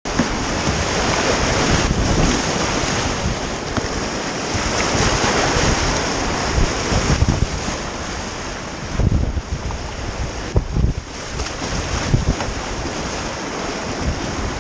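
Whitewater rushing and churning around a kayak as it runs a river rapid, with wind buffeting the microphone. Several low thumps in the second half.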